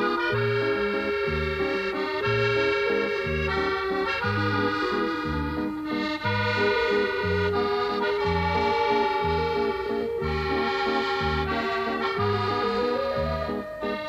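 Accordion music: a sustained melody over a bass line that alternates between two low notes about once a second.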